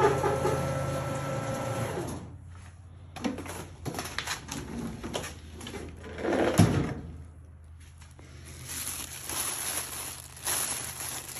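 KitchenAid trash compactor's motor running with a steady hum as it crushes a load of disposable diapers, stopping about two seconds in. Then clicks and a loud clunk as the compactor drawer is pulled open, followed by rustling of the plastic bag and crushed diapers.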